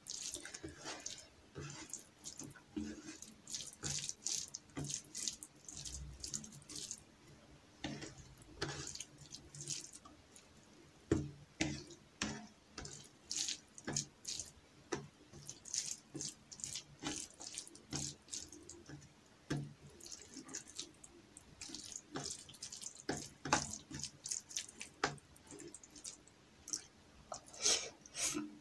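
Close-miked wet squelching and sticky clicking, several times a second, from fingers mixing rice with lentil dal and chopped salad on a plate.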